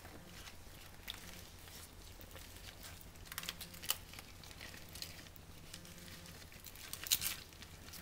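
Fresh banana leaf rustling and crinkling as gloved hands fold it into a parcel around a piece of fish, with a few sharper crackles about three and a half seconds in and again about seven seconds in.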